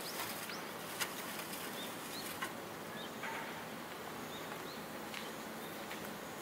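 Countryside ambience: short, scattered bird chirps over a steady background hiss, with two light knocks about one and two and a half seconds in.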